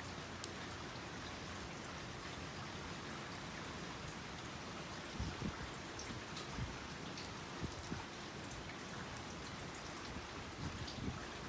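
Hand basket weaving: a few soft, irregular taps and knocks as the material is handled, starting about halfway through, over a steady hiss.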